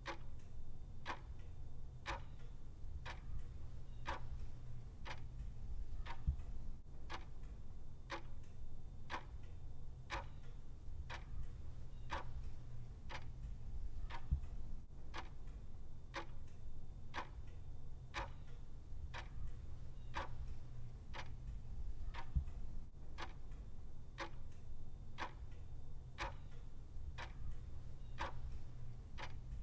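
Clock ticking at a steady, even pace of about two ticks a second, over a low background rumble.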